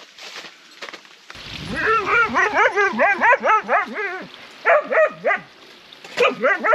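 A dog yipping and whining in a quick series of short rising-and-falling cries, about five a second, then a few more in two short spurts.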